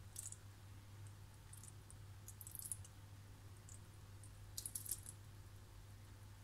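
Quiet pouring of cold milk from a glass jug onto a cocoa sponge cake in a glass baking dish, heard as a few soft clicks and crackles as the liquid lands and soaks in, over a low steady hum.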